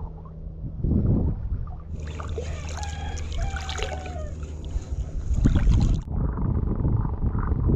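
Shallow sea water sloshing and gurgling around a wading angler's legs, under a steady low rumble of wind on the microphone. For a few seconds in the middle, faint wavering whistles rise over it.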